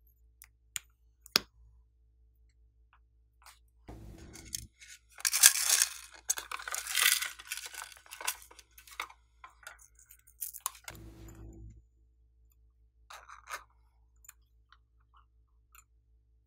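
A couple of sharp plastic clicks as a lipstick-style cap is pulled off, then about three seconds of loud crunching and rustling as a pink plastic makeup case is worked open and emptied, followed by scattered light taps and crackles.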